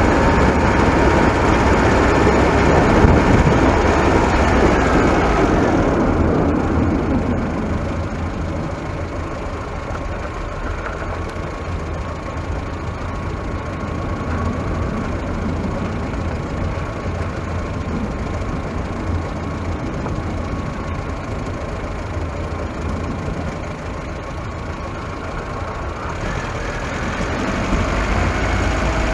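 A vehicle driving, heard from on board: a steady engine and road-noise rumble, heavier in the first few seconds, softer through the middle, and building again near the end.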